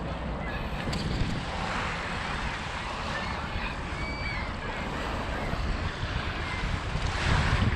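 Wind buffeting the microphone over a steady wash of small Lake Michigan waves on the beach, the surf swelling a little about two seconds in and again near the end.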